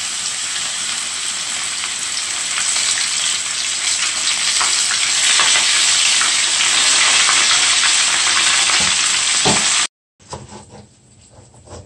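Whole flour-dusted fish frying in hot oil in a frying pan: a loud, steady sizzle that grows louder about halfway as a second fish goes into the oil. It cuts off abruptly near the end, followed by faint taps of a knife slicing a bell pepper on a cutting board.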